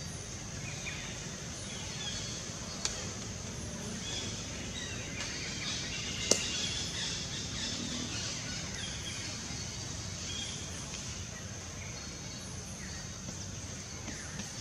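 Forest ambience: a steady high-pitched hiss with scattered bird chirps, and two sharp clicks, the louder one about six seconds in.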